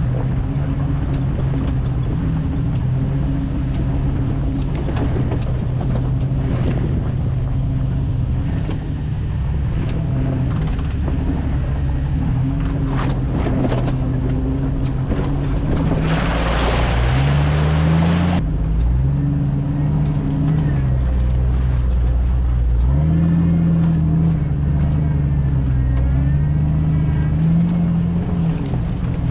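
Off-road vehicle's engine running on the trail, its pitch rising and falling several times in the second half as the throttle is worked. About halfway through, there is a two-second burst of rushing noise.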